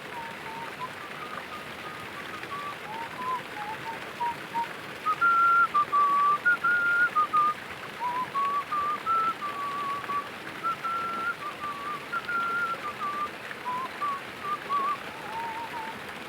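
A person whistling a melody, a single clear tone stepping between held notes, loudest in the middle, over a steady hiss.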